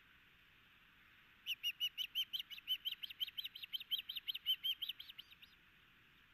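Osprey calling from the nest: a rapid series of loud, high chirps, about seven a second, starting a second and a half in and fading out after about four seconds.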